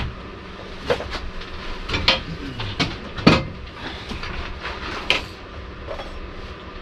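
Clanks and knocks of metal parts as a motorcycle engine is shifted into position in its frame: several separate hits, the loudest a little past three seconds in.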